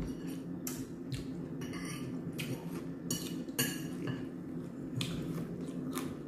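Close-up crunching of someone chewing crispy fried chicken: about a dozen short, irregular crunches over a steady low hum.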